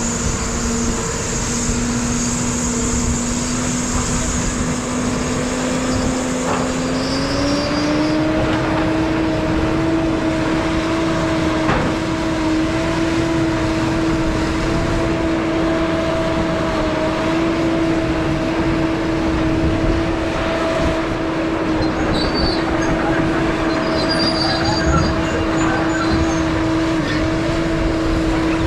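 Motor vehicle driving: steady engine and road noise with a hum that rises in pitch about seven seconds in as it speeds up, then holds steady.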